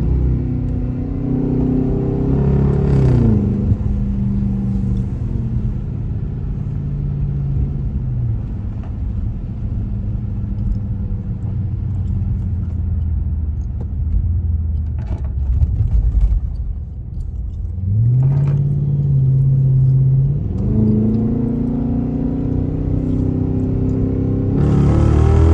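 Dodge car engine pulling through the gears: its pitch climbs and drops sharply at an upshift about three seconds in, eases down to a low steady drone in the middle, then climbs again from about two-thirds of the way through, with another shift and a fresh rise near the end.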